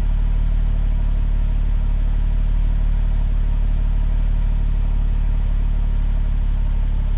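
Car engine idling steadily, with a low, even exhaust note.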